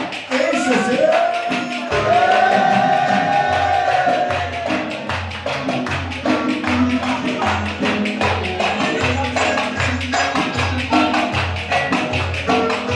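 Ankara oyun havası folk dance music played loud on saz with drums and hand percussion. A wavering, gliding melody leads in the first few seconds, then a steady low drum beat about twice a second carries on under quick percussion strokes.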